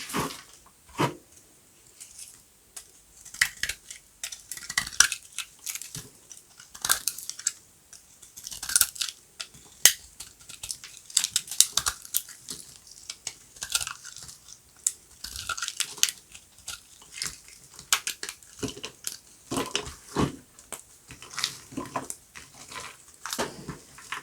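Knife cutting dry soap, a run of sharp crackling crunches as the blade breaks through the brittle bar, stroke after stroke at an uneven pace.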